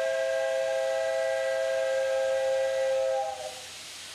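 Steam whistle of the 1922-built Class 8620 steam locomotive 58654, one long blast of several steady tones sounding together, the departure signal. It cuts off about three and a half seconds in, leaving a steady hiss of steam venting by the cylinders.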